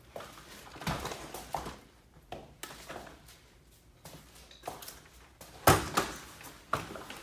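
Irregular knocks and rustling thuds in a small room, the loudest a sharp knock a little before the end.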